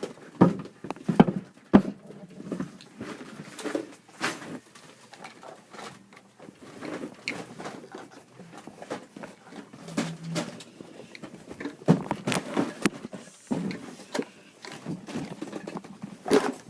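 Irregular knocks, clicks and rustling from someone handling and carrying a storage drawer of toy materials.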